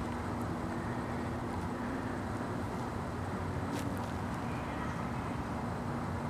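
Steady low rumble of a car driving slowly, with a constant low hum running under it.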